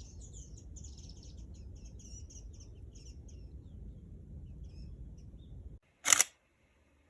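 Small birds chirping in rapid, short, high notes over a low steady rumble; the chirps thin out after a few seconds. Near the end a single short, loud burst of noise cuts in.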